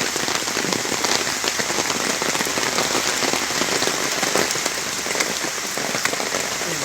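Steady rain falling, an even patter of many drops.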